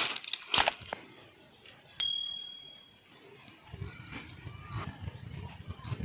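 Birds chirping in short rising notes over the second half. About two seconds in comes a single sharp click that rings on briefly at one high pitch, and there are a couple of rustling, handling noises at the start.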